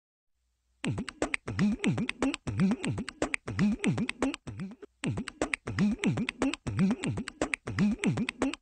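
A beatbox-style beat: sharp clicking percussion over low bass notes that slide down and back up about twice a second. It starts about a second in and breaks briefly near the middle.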